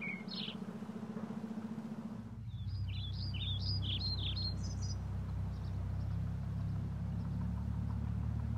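A small bird chirping in quick rising and falling phrases, twice, over a steady low motor hum that grows louder about two seconds in.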